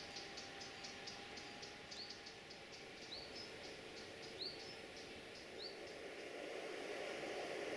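Insects chirping in a rapid pulse, about five chirps a second, which thins out after the first seconds, while a bird repeats a short rising chirp four times, about a second apart. A low rushing noise swells over the last two seconds and becomes the loudest sound.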